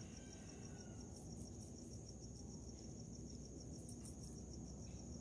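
Crickets chirping: a steady, high-pitched trill of evenly spaced rapid pulses.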